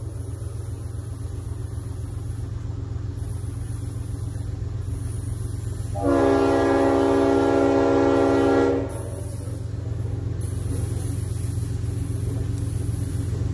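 Diesel locomotive air horn sounding one long, steady blast of about three seconds, from an approaching train, over a low train rumble that grows slightly louder toward the end.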